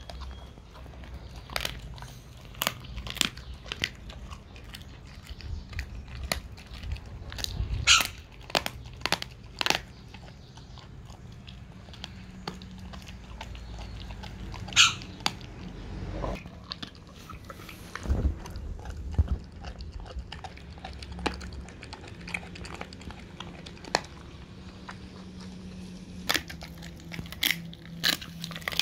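A dog chewing a raw turkey wing, crunching through the bone with irregular sharp cracks.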